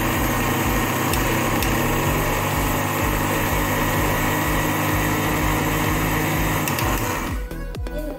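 Electric mixer grinder running steadily with its steel jar held down, dry-grinding moth bean (matki) dal; the motor switches off a little after seven seconds in.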